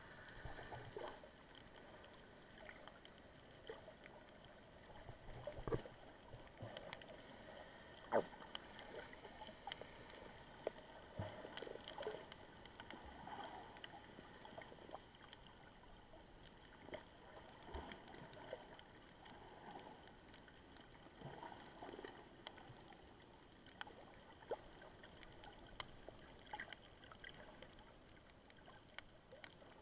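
Faint muffled underwater sound picked up by a camera held below the surface: water movement with scattered clicks and knocks, the loudest knock about eight seconds in.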